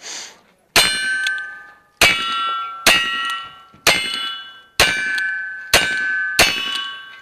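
.22 Long Rifle Ruger Single Six revolvers fired from both hands, seven shots at roughly one a second, each hit making a steel target ring with a clear metallic clang that dies away over about a second.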